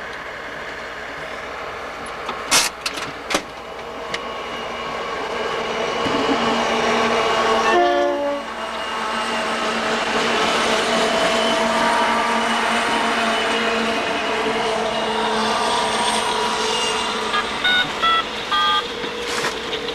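Santa Fe diesel freight train passing close by: the rumble of the locomotives builds over the first several seconds, with a brief pitched tone as they go past, then the freight cars roll by with a steady loud rumble.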